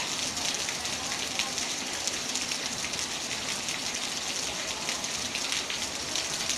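Steady rain falling: an even hiss dotted with many small drop hits.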